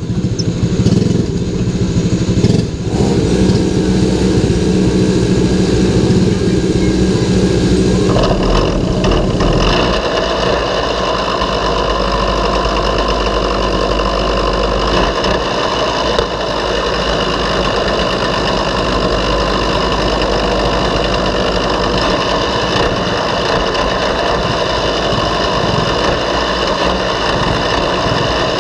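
Go-kart engine running steadily at idle while the kart sits stationary, turning harsher and fuller about eight seconds in, then holding steady.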